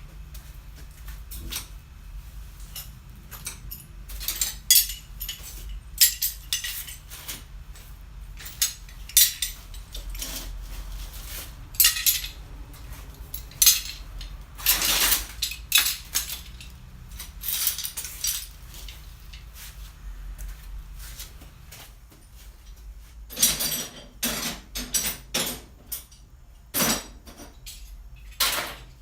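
Steel C-clamps clanking and clinking against one another as they are picked up and handled, in irregular sharp strikes throughout.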